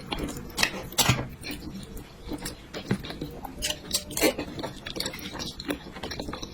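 Close-miked eating sounds: a person chewing and biting food, with irregular wet mouth clicks and smacks, the loudest about a second in and again around four seconds in.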